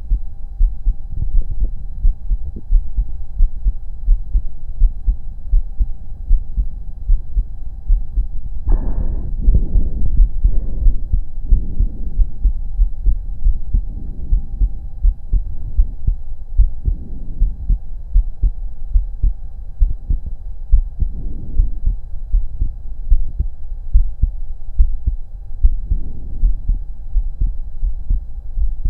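Heartbeat heard through a stethoscope on the chest: a steady run of low thuds, with a faint steady hum underneath. About nine seconds in, longer rushing sounds start over the beat and recur every second or two, breathing heard through the chest as a breath-hold ends.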